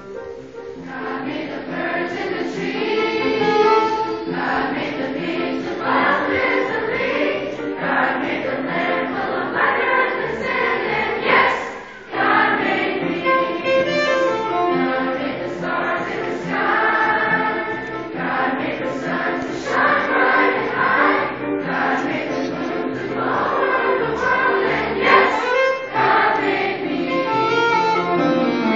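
A large choir singing, many voices holding sustained notes together, with a brief break about twelve seconds in.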